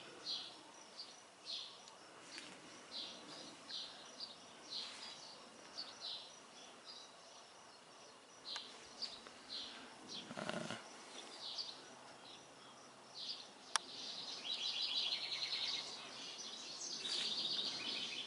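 Outdoor ambience of small birds chirping repeatedly, with a faint steady insect drone behind it. Rapid trilling calls in the last third are the loudest part. There is a brief dull noise about halfway through and a single sharp click shortly after.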